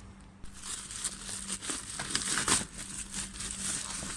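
Plastic parcel packaging crinkling and rustling as it is unwrapped by hand, starting about half a second in and going on as a quick run of crackly rustles.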